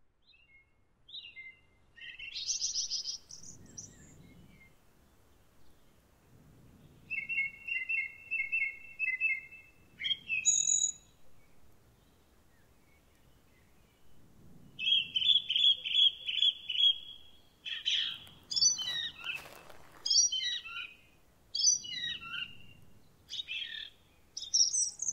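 Songbirds singing in a run of chirps and trilled phrases, coming in about a second in out of silence. A brief rush of noise about three-quarters of the way through.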